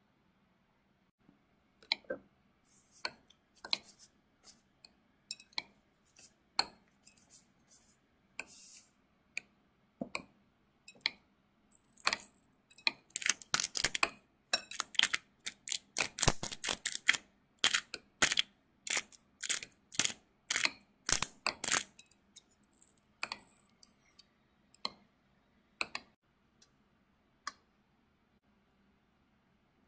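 Metal spoon and fork clinking and scraping against a glass mixing bowl while mashed potato is stirred: a run of sharp clinks, sparse at first, coming thick and fast through the middle, then thinning out.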